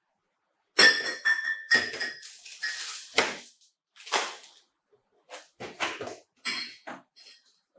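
Crinkling and rustling of a plastic-wrapped package being handled, in a series of irregular bursts with a few light knocks.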